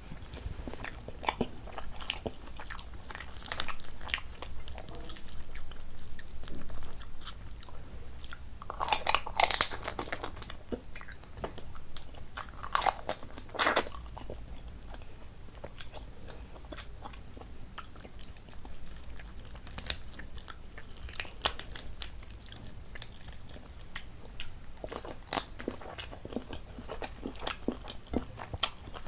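Close-up sounds of a person eating: biting and chewing with crisp crunches and wet mouth clicks, the loudest bursts of crunching about nine and thirteen seconds in.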